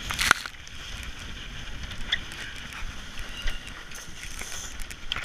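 Spray from the racing catamaran's hull splashing up over the netting in a short loud hiss at the start, then a steady rush of water and wind with scattered clicks and knocks.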